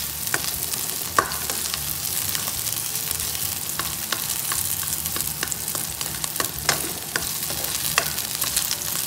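Garlic and sliced onion sizzling in hot oil in a nonstick pan, a steady hiss, with scattered sharp clicks and scrapes of a plastic spoon stirring them.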